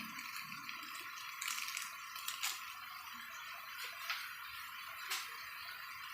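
Scattered light clinks and knocks of kitchen utensils against cookware, about half a dozen, over a steady high hiss.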